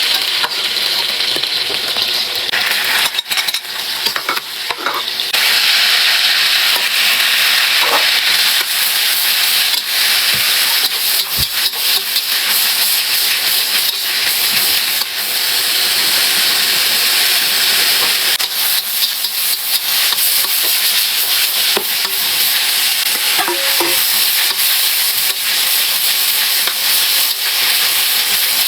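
Food sizzling as it is stir-fried in a hot pan, with the spatula clicking and scraping against the pan as it is stirred. The sizzle grows louder about five seconds in.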